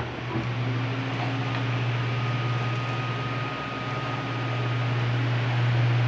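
Mallory Delfos TS electric pedestal fan running on its third speed: a steady rush of air over a low motor hum, slowly growing a little louder.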